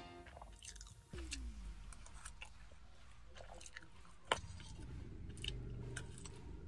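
Close-up chewing of fried rice with peas and cashews, with small crunches and clicks, and one sharp crunch about four seconds in as a cashew is bitten.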